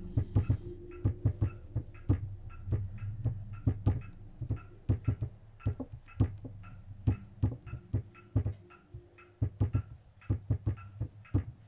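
Irregular knocking and clicking, several knocks a second, over a low steady hum. The noises are put down to the house being old.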